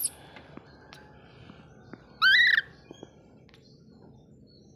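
Baby monkey giving one loud, high-pitched squealing call about two seconds in, its pitch rising then falling, after a brief upward squeal at the very start. Faint clicks and rustling fill the gaps.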